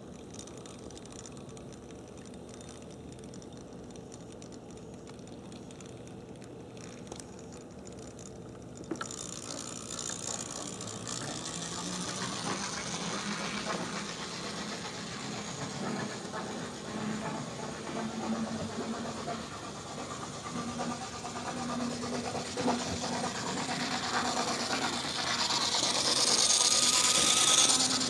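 Vintage HO-scale Mantua 0-4-0T model steam switcher running fast around the layout: its electric motor and gears whir and its wheels run on the rails. Faint at first, it comes in about a third of the way through and grows louder, loudest near the end. It is running at only about 35% power.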